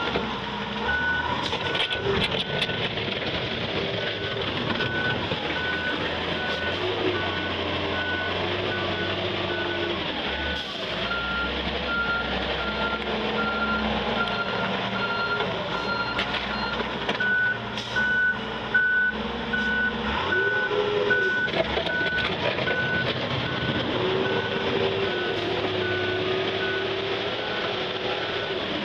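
Taylor GT 210 rough-terrain forklift's backup alarm beeping steadily, about one and a half beeps a second, over its diesel engine running and revving up and down as it manoeuvres and plows snow.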